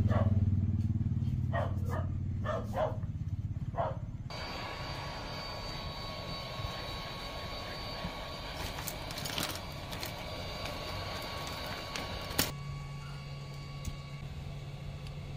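A few handling clicks, then a hot air gun blowing steadily on a phone's back cover, heating it to soften the adhesive: an even hiss with a thin steady whine. It is switched off with a click about twelve seconds in, leaving a low steady hum.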